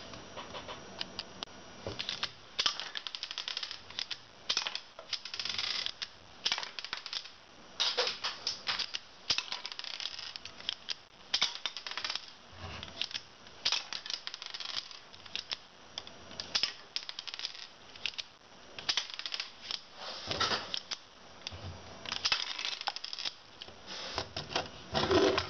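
Lego double-action pistol's plastic mechanism clicking and clattering, shot after shot, as it is worked and fired: many sharp clicks, irregular and often in quick clusters.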